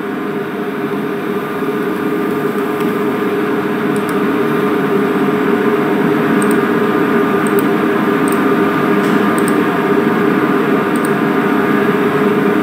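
A steady machine hum with a few held tones mixed into an even noise, growing a little louder over the first couple of seconds, with faint high ticks now and then.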